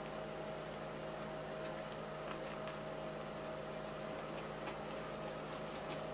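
Steady electrical hum with a few faint, scattered ticks over it.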